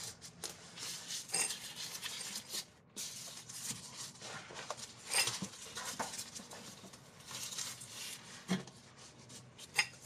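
Scattered light metallic clinks, taps and rubbing of tools and suspension parts being handled while the new front stabilizer bar bushing and its bracket are fitted back on.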